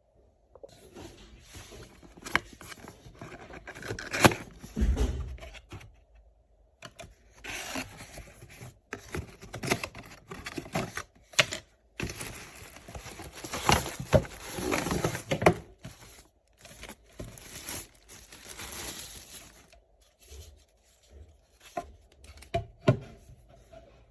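Rustling and scraping of things being handled, in irregular bursts with a few sharp clicks and short pauses.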